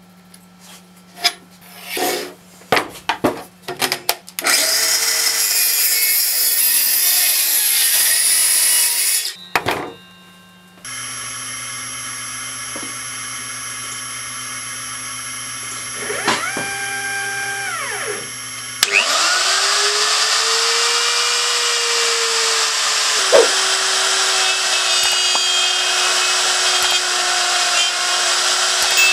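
Workshop machining of plywood. A few sharp knocks, then a power saw cutting through 18 mm plywood for about five seconds. Then a homemade CNC router: its stepper motors hum and whine up and down in pitch as the gantry moves, and about nineteen seconds in the trim-router spindle spins up and runs steadily, cutting the plywood.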